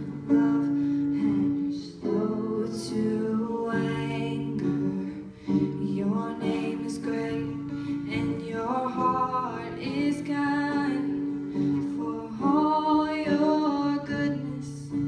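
A woman singing with acoustic guitar accompaniment, her voice holding long notes over the guitar's chords.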